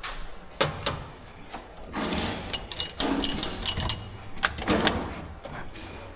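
Metal tools and engine parts being handled in a workshop: scattered knocks and clinks, with a cluster of short ringing metallic clinks about three seconds in.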